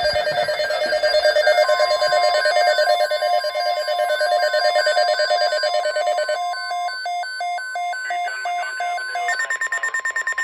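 Emergency alert signal announcing a severe thunderstorm watch: a loud, rapidly pulsing mix of electronic alarm tones over a steady single tone that comes in about two seconds in. The pulsing pattern changes about six seconds in and again near the end.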